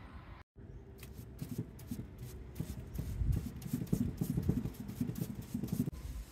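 Paintbrush stroking paint onto the wooden side of a beehive box: a run of irregular brush strokes that starts after a brief gap about half a second in.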